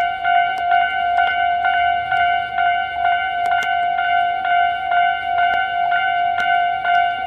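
Japanese railway level-crossing warning bell ringing without a break, a repeating ding about three times a second: the crossing is closed for an approaching or passing train.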